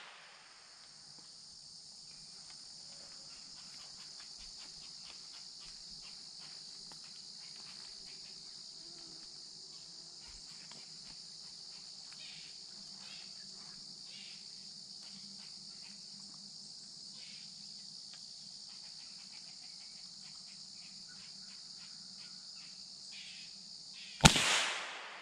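A steady chorus of insects shrilling in the woods, broken once near the end by a single sharp rifle shot with a short echoing tail.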